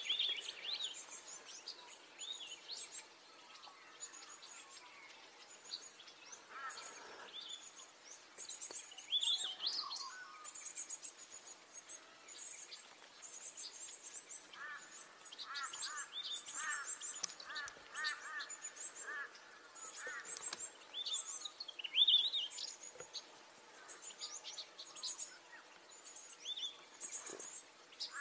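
Gouldian finches calling: high, thin chirps repeated all through, with a few sharper, lower calls now and then. About halfway through comes a quick series of lower notes lasting about five seconds.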